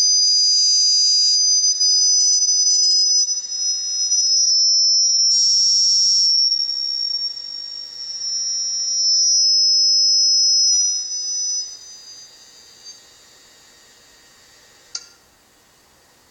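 Two high-pitched whistling tones that drift slowly in pitch, gliding together and apart, then fade out about two thirds of the way through; a single sharp click near the end.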